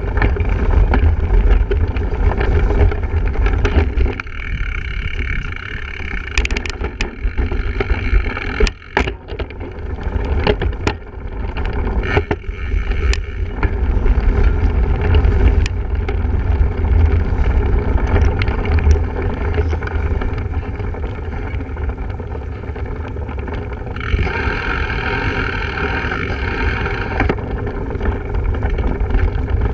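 Wind buffeting the microphone of a camera riding along on a single-speed cyclocross bike in a race, a steady low rumble, with the bike's rattles and sharp knocks over rough ground through the middle stretch.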